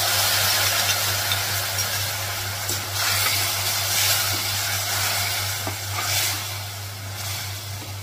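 Loud sizzling as a watery spice paste of turmeric, ground coriander, cumin and deggi mirch hits hot oil and browned onions in a kadhai, starting just as it is poured, with a slotted steel spoon scraping and stirring the mixture.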